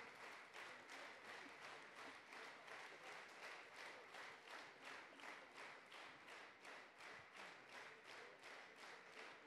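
Audience clapping in unison, faint, a steady rhythmic applause at about two and a half claps a second.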